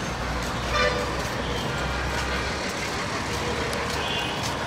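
Steady traffic din with a low rumble through the first half, and a short horn toot about a second in.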